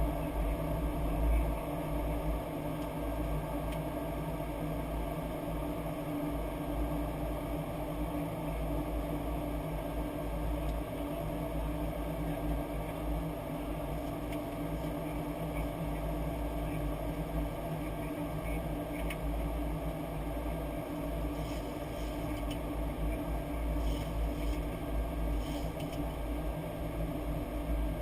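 Steady flight-deck noise of a Boeing 737-800 on approach: a continuous rumble of airflow and engines with a constant hum underneath.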